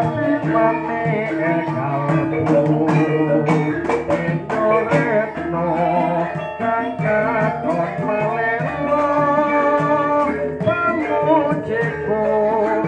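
Javanese gamelan ensemble playing: bronze metallophones, gong kettles and hanging gongs over struck kendang drum strokes, with a voice singing a wavering melody on top.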